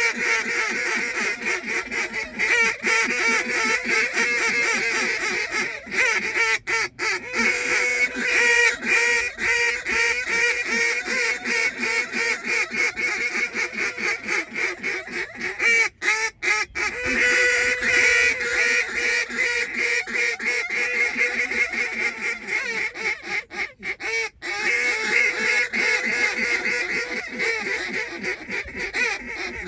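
A large flock of geese calling, many birds at once in dense, continuous overlapping honking.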